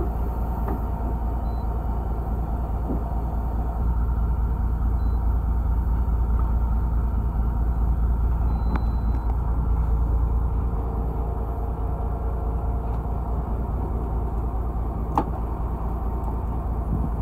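Fishing boat's engine idling, a steady low rumble, with one sharp click near the end.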